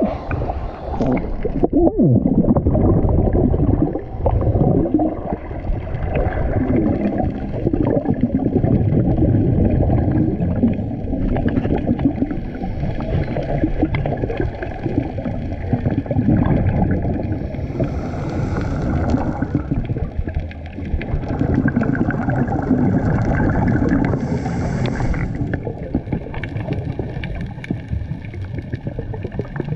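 Muffled underwater sound through an action camera's waterproof housing: a steady low rumble with gurgling scuba exhaust bubbles. It opens with a brief splash as the camera goes under, and two louder bursts of bubbling come in the second half.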